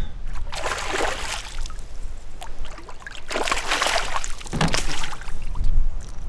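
Water splashing as a hooked fish thrashes at the surface while it is pulled in and landed, in three bursts: around half a second to a second and a half in, then around three and four and a half seconds in.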